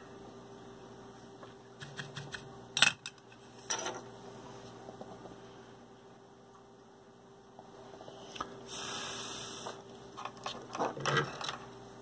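Steady electrical hum under a few light clicks and taps as a soldering iron and a plastic clamp holding a freshly soldered XT60 connector are handled. A short hiss about two-thirds of the way through.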